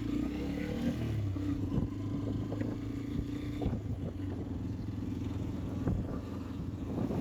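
Motorcycle engine running steadily while riding, with a few faint knocks.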